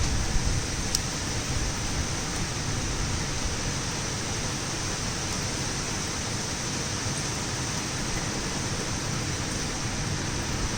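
Torrential rain pouring down steadily, a dense even hiss, with an occasional sharp tick, such as one about a second in.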